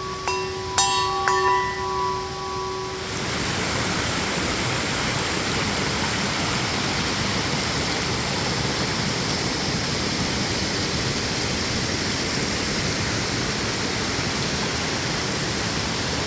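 A bear bell struck about three times in the first two seconds, its clear tones ringing out and dying away about three seconds in. After that comes the steady rush of a waterfall running full after heavy rain.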